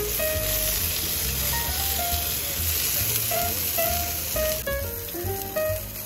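Meat sizzling as it fries in a hot skillet on a cassette gas stove, with background music playing a melody over it. The sizzle thins out about four and a half seconds in while the music carries on.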